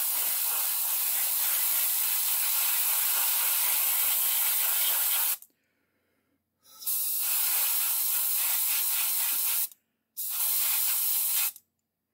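Airbrush spraying black primer in three bursts of airy hiss: a long one of about five seconds, then one of about three seconds and a short one near the end, each starting and cutting off sharply at the trigger.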